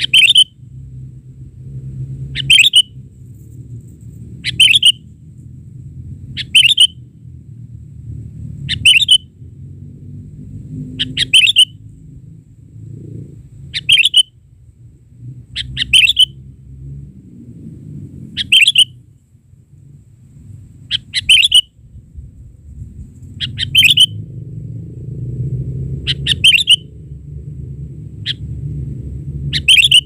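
Sooty-headed bulbul calls: short, sharp, loud notes repeated about every two seconds. Beneath them runs a steady low rumble.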